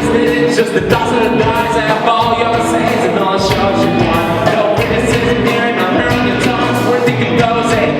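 Rock music with singing over a full band, loud and steady throughout.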